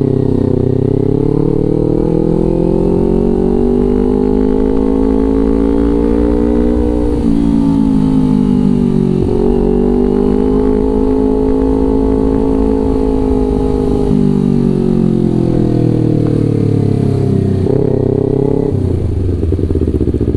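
Kawasaki Ninja 250 FI parallel-twin running through a Villan New ZX1 aftermarket exhaust while being ridden. The revs climb and drop in waves several times, with sudden drops in pitch at the gear changes.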